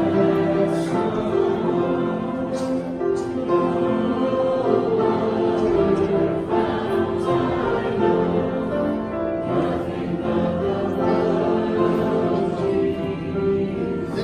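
Church congregation singing a hymn together, with many voices holding long notes at a steady level.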